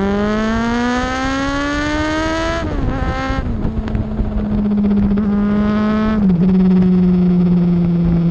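Motorcycle engine accelerating hard, its pitch rising steadily, then dropping at an upshift about two and a half seconds in. After that it runs at a fairly steady pitch, with another brief dip at a gear change about six seconds in.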